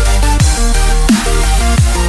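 Electronic dance music in a dubstep style: a heavy sustained bass under held synth chords, with a deep drum hit whose pitch drops sharply about every 0.7 seconds and bright cymbal hits.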